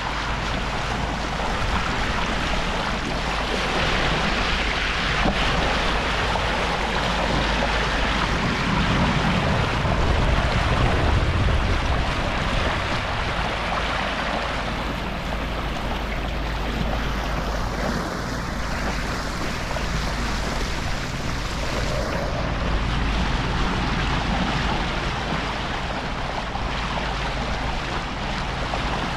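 Sailboat's bow wave rushing and splashing along the hull as it motors over calm sea, with wind buffeting the microphone. A steady low engine hum runs underneath.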